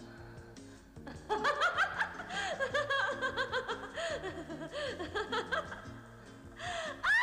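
A woman laughing in quick repeated bursts over background music. The laughter starts about a second in and lasts about four seconds.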